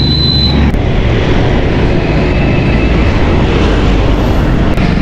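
Loud, steady rumble of wind on the microphone mixed with road traffic, heard while riding a bicycle along a busy road.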